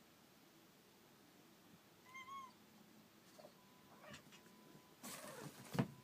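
Kitten making odd noises while playing: a short pitched call that rises and falls about two seconds in, a few short clicks, then a harsher noisy burst with a falling pitch and a sharp thump near the end.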